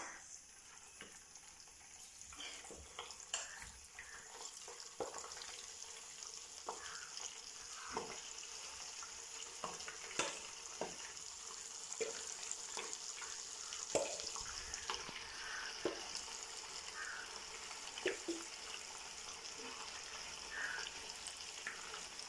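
Marinated chicken pieces deep-frying in hot oil in a pan: a steady sizzle with frequent small crackles and pops.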